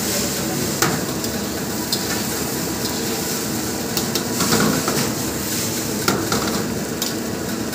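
Fried rice sizzling in a wok over a gas burner as it is stirred and tossed with a metal spatula. The spatula knocks sharply against the pan several times.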